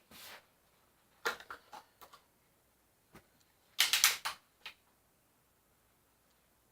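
Sharp mechanical clicks and snaps from a Benjamin Discovery .22 PCP air rifle being worked. The loudest is a quick cluster of about five snaps about four seconds in.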